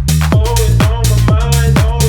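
Electronic dance music with a fast, steady kick-drum beat; a wavering melody line comes in about half a second in.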